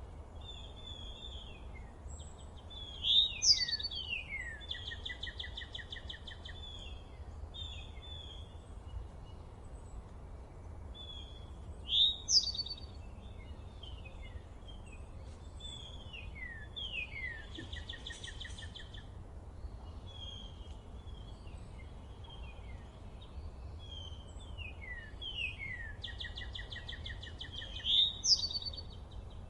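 Songbirds singing over a steady low outdoor hiss and rumble: a mix of short downward-slurred notes and buzzy trills, with one nearby bird calling loudly three times, near the start, in the middle and near the end.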